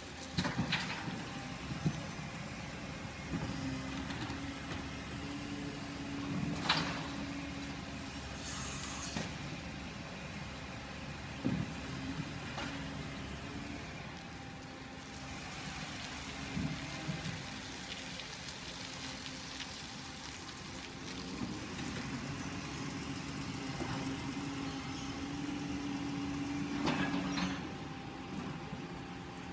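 Side-loading garbage truck's diesel engine running at low revs as the truck stops and moves along the street, with several short air-brake hisses and knocks.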